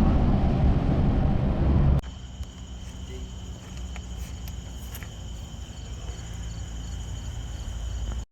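A loud low rumble that stops abruptly about two seconds in, then insects, crickets by the sound of it, chirping steadily in high tones over a faint low hum.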